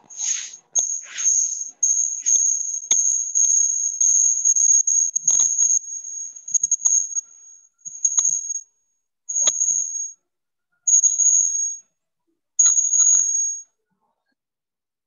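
A steady, high-pitched whine, unbroken for the first seven seconds or so, then cutting in and out in four spells about a second long each, with a few sharp clicks and knocks scattered through it. It stops about a second and a half before the end.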